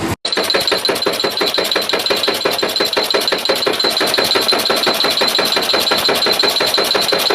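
Production machine running at speed: a rapid, even clatter of about nine or ten strokes a second over a steady high-pitched whine.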